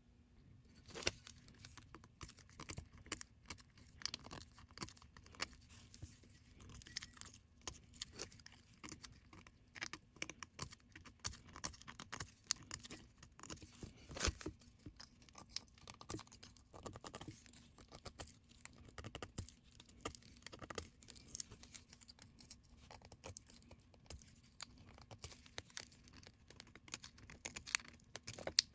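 Irregular clicks, taps and rustling of parts and tools being handled, with a faint steady hum underneath.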